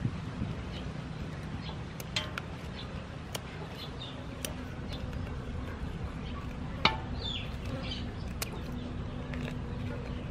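Kitchen scissors snipping through a raw lobster's underside shell: a handful of sharp clicks, a second or more apart, the loudest about seven seconds in, over a steady low hum.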